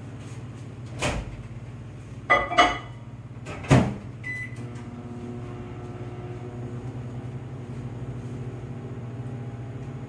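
Microwave oven being loaded and started: a few sharp clicks and knocks from the door, the loudest as it shuts about four seconds in, a short beep, then the microwave running with a steady hum.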